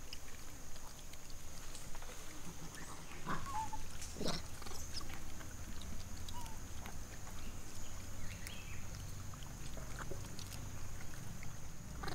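Macaques calling: a cluster of short squealing cries, some sweeping down sharply in pitch, about three to five seconds in, with a few fainter calls later.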